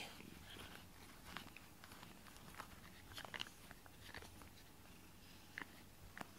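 A cat nibbling and biting at a grooming brush while being brushed: faint, scattered clicks and rustles.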